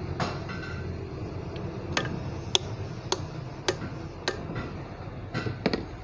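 Light metal-on-metal hammer taps on the compressor's piston and crankcase: five evenly spaced taps about every half second, starting about two seconds in, then three quick taps near the end, as a piston is driven down into its cylinder on a Bock FK40 bus AC compressor.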